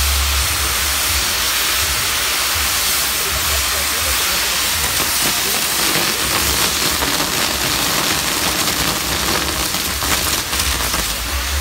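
Fireworks castle burning: spinning pyrotechnic wheels and fountains spraying sparks with a loud, steady hiss and fine crackling throughout.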